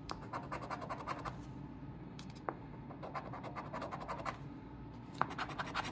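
A coin-shaped scratcher token scraping the coating off a scratch-off lottery ticket in rapid back-and-forth strokes, with a couple of sharper ticks.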